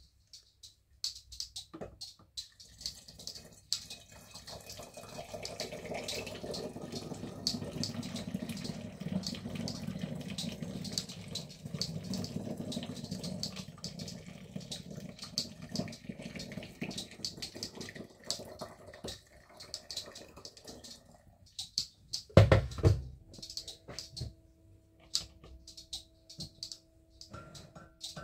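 Freshly boiled water poured through a plastic funnel into a glass bottle of chopped garlic: a steady splashing gurgle with small bubbly clicks that starts about two seconds in and stops about 21 seconds in. A loud knock follows about a second later, then a faint steady hum.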